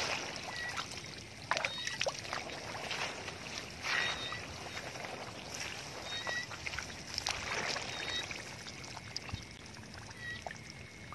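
Shallow muddy water splashing and sloshing in separate short bursts every second or two as fish stir in it, with short high chirps repeating throughout.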